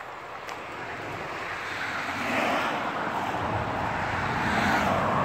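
A vehicle passing on a road, its tyre and engine noise building steadily.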